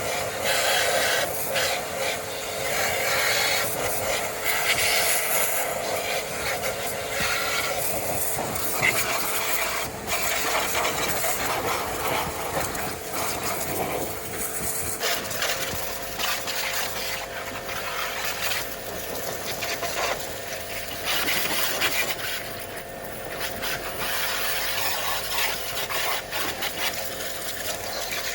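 A machine running with a steady hum, with a loud hissing, rasping noise over it; the hum shifts slightly in pitch about halfway through.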